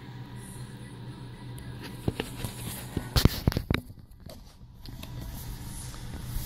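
Handling noise from a paper booklet being held and turned: a cluster of clicks and rustles about two to four seconds in, over a steady low hum.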